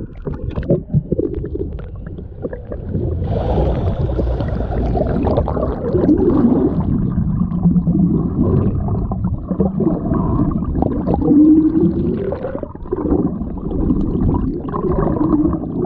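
Muffled underwater rumbling and gurgling picked up by a camera beneath the surface, with a few low, wavering tones drifting up and down.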